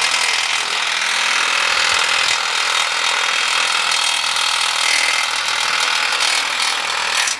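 Cordless impact wrench hammering steadily on a bolt of a center-pivot pipe valve flange. It cuts off suddenly near the end.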